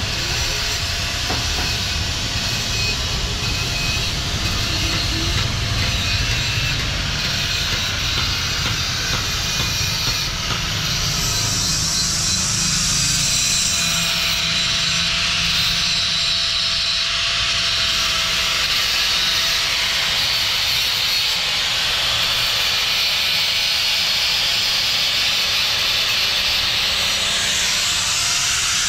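Handheld angle grinder running against the steel stub axle of a truck's rear wheel hub: a steady hissing grind over the motor's whine. The grind gets brighter and harsher about eleven seconds in.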